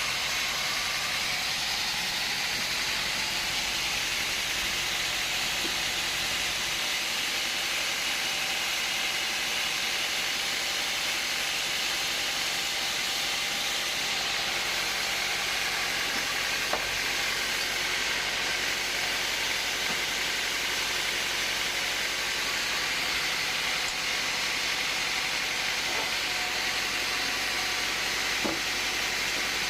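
Woodworking machinery running steadily, an even high hiss, with a couple of faint ticks.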